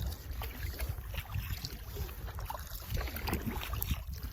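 Rustling, small knocks and scrapes of a kayak spray skirt being fitted around the back of the cockpit, which it does not fit well. Wind rumbles on the microphone underneath.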